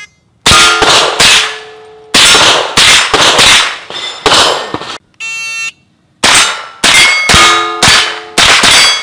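Rapid gunshots at steel targets, each hit followed by the ringing clang of a struck steel plate. About five seconds in, an electronic shot timer gives a short start beep, then another fast string of shots and ringing plates follows.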